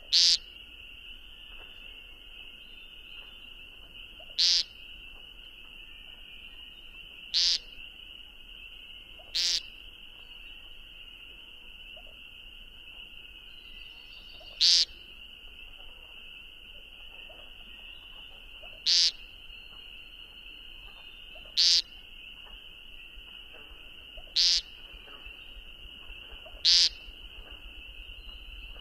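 Eurasian woodcock giving short, sharp, high squeaking calls, about nine of them spaced two to five seconds apart. They sound over a steady high-pitched chorus of night insects or frogs.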